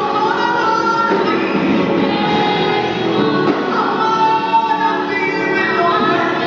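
Congregational gospel singing over amplified music, many voices together at a steady level.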